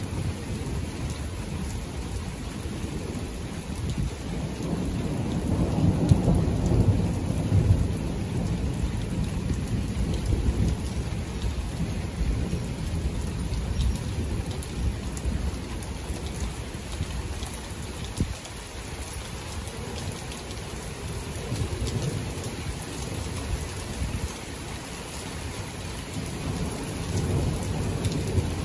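Thunderstorm: steady rain with rolling thunder. A low rumble swells a few seconds in and is loudest a couple of seconds later, then dies back into the rain, with weaker rumbles returning near the end.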